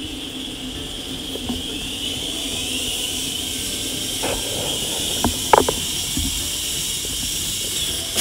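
A steady hiss with a low hum beneath it, and a few small clicks a little past the middle.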